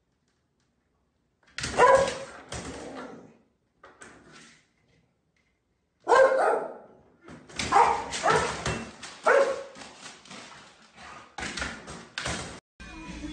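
A dog barking, about nine separate loud barks starting about a second and a half in and coming closer together in the second half.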